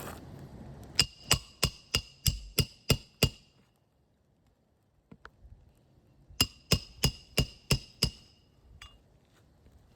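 Roofing hammer striking a roof snake to drive roofing nails under a 3-tab asphalt shingle: two runs of quick metallic strikes, about eight and then about six, some three a second, each with a short ring.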